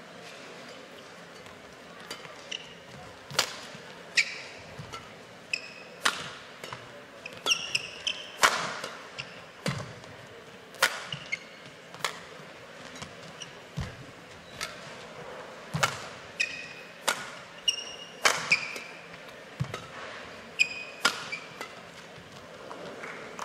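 Badminton rally: sharp cracks of rackets striking the shuttlecock about once a second, from about two seconds in until shortly before the end, with short high squeaks of shoes on the court mat between shots and a low hall hum underneath.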